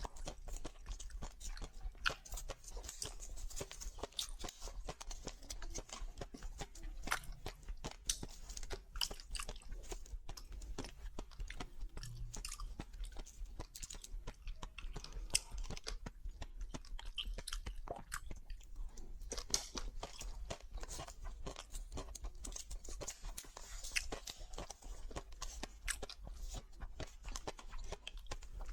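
Close-miked eating sounds: crunchy food being bitten and chewed, with dense irregular crackles and wet mouth sounds over a steady low hum.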